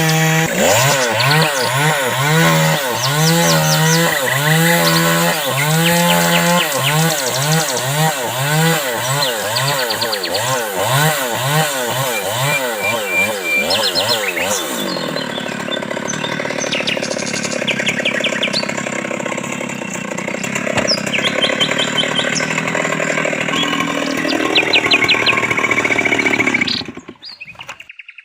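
A saw cutting wood, its pitch rising and falling about twice a second for roughly the first half, then a steadier rasp that stops shortly before the end; birds chirp throughout.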